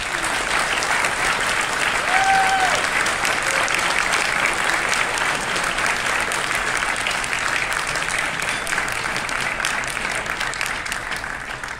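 Audience applauding steadily, dense clapping that slowly dies down near the end. A brief high note rises out of it about two seconds in.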